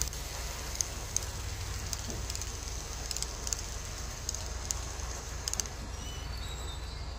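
Model Virginia Railway Express bi-level commuter train running along layout track: a steady low rumble with light, irregular clicking.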